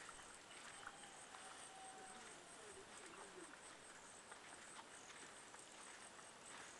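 Near silence: faint rural outdoor ambience with a high, evenly pulsing insect chirp and light footsteps on a sandy dirt path.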